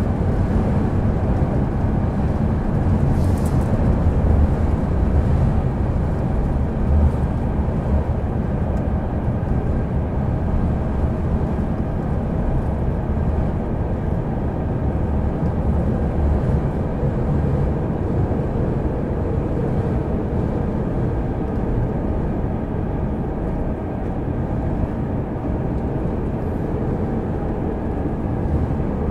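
Rapid Marine Liner train running at speed, heard from inside a passenger car: a steady rumble of wheels and running gear on the rails.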